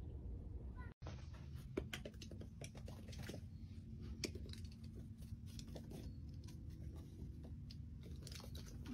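Kittens batting a small ball around on paving stones: scattered light clicks and taps of paws and ball, a few louder than the rest, over a steady low rumble.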